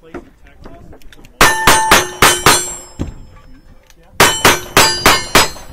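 Revolver shots in two quick strings of about five each, a little over a second apart, each shot followed by the ringing clang of steel targets being hit.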